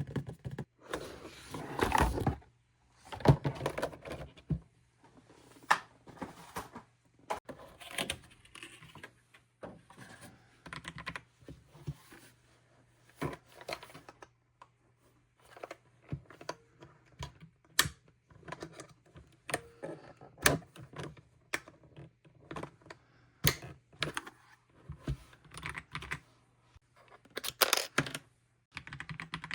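Irregular taps, clicks and short rustles as an Attack Shark X85 PRO mechanical keyboard and its packaging are unboxed and handled.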